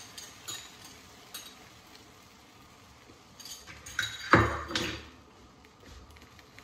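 Kitchen clatter of a whisk and mixing bowl: a few light clinks early on, then a louder knock and clatter about four seconds in.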